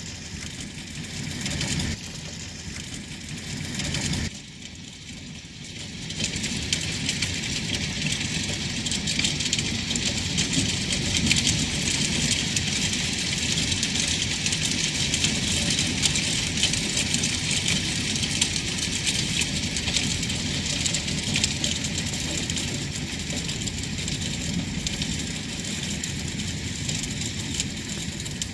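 Ice pellets falling on asphalt roof shingles and a metal gutter: a dense, steady hiss of countless tiny ticks, with a low rumble underneath. It drops quieter for a moment about four seconds in, then comes back at full strength.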